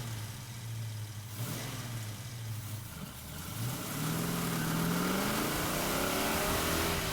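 Modified 1970 Chevy Chevelle's 486ci V8 with Flowmaster exhausts running steadily at first. After a brief drop, the engine note climbs slowly over the last three seconds as the car accelerates.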